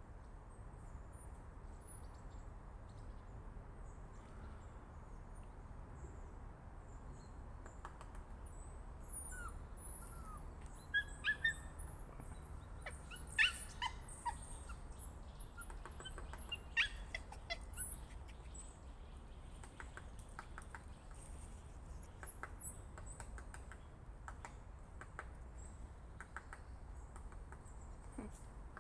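Woodpecker pecking at an oak, a series of sharp irregular knocks that are loudest in the middle stretch, with small birds chirping high and short alongside.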